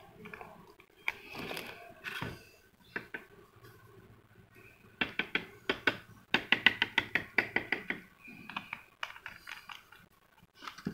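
A small plastic bottle of coarse polishing compound being shaken hard, two quick runs of sharp rattling knocks about five to seven and a half seconds in, with softer handling taps of the bottle and cap around them.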